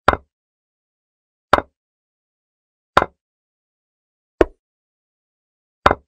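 Chess program's piece-move sound effect: five short clicks, evenly spaced about a second and a half apart, one for each move played on the board.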